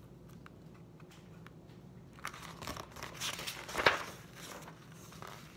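Paper pages of a picture book rustling and crackling as a page is turned. It starts about two seconds in and is loudest just before four seconds in.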